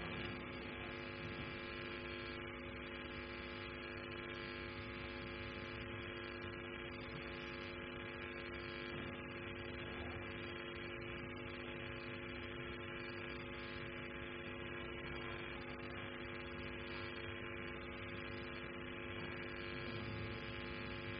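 Steady electrical mains hum, a buzzy stack of even tones that holds unchanged.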